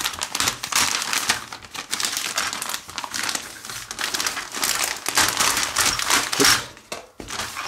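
Clear plastic bag of model-kit parts crinkling and rustling in the hands as it is worked open, with irregular crackles that die down near the end.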